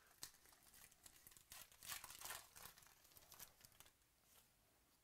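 Faint crinkling and tearing of a trading-card pack wrapper being opened by hand, in a series of short rustles that die away near the end.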